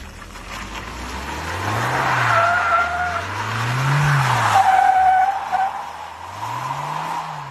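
Mahindra Thar's engine revving up and falling back three times while its tyres squeal in bursts as it drifts round in circles on tarmac.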